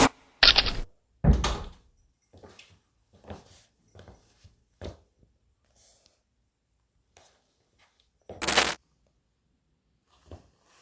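Cardboard shoebox being handled: a couple of solid thuds, then softer knocks and taps, and a short, louder scrape near the end.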